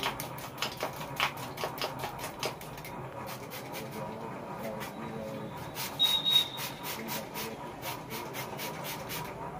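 Hand-pump plastic spray bottle worked repeatedly, a quick uneven series of short hissing spritzes of water onto the face and hair, with a lull between about three and five seconds in. A brief high thin tone sounds about six seconds in.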